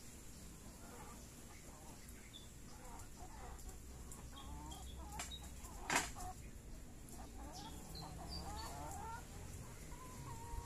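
A flock of chickens clucking in short, soft calls while they peck at food, with one sharp click about six seconds in.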